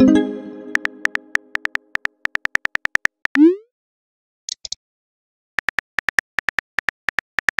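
Phone keyboard typing clicks in quick runs, each run ending in a short rising swoosh as a text message is sent. A ringing chime tone opens it, and two brief high blips fall in a pause midway.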